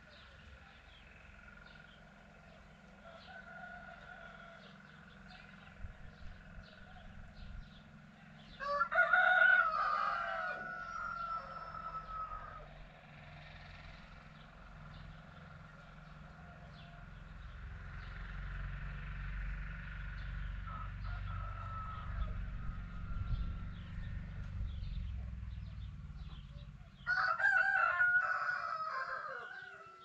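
A rooster crowing twice, about nine seconds in and again near the end, each crow lasting a few seconds. Between the crows a low rumble swells and fades.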